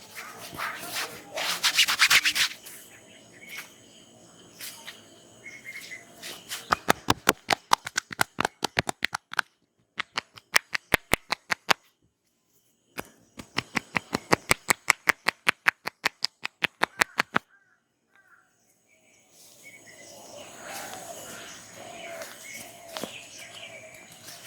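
Rapid hand tapping of a head massage, about seven sharp slaps a second, in three runs with short pauses. Softer rubbing over hair and skin comes before and after the runs.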